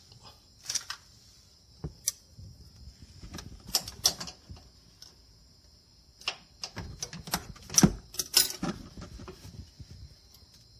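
Irregular small metallic clicks and taps from handling the air-conditioner compressor's clutch parts and shim washer, with the loudest knock about three quarters of the way in.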